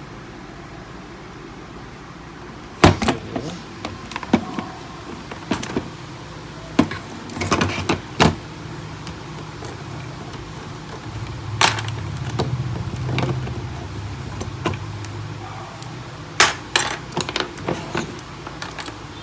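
Sharp clicks and knocks of plastic and metal printer parts and a screwdriver being handled during disassembly. There is a loud knock about three seconds in, a cluster of clicks near the middle, and a quick run of clicks near the end.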